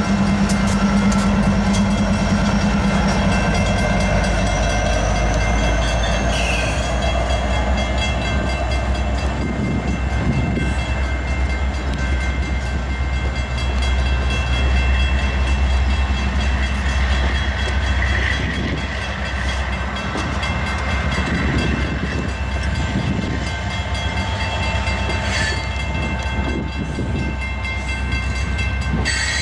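Loaded coal hopper cars of a freight train rolling past on the rails in a heavy, steady rumble, with steady high ringing tones over it. A diesel locomotive's engine drone fades out in the first few seconds.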